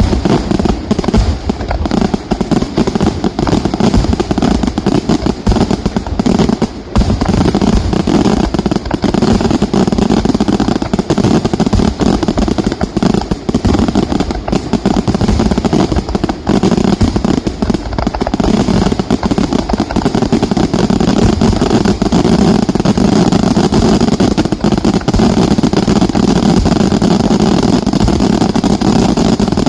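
Fireworks display in a dense, continuous barrage of explosions and crackling, the bursts packed too closely to pick out one by one, with a steady heavy rumble underneath.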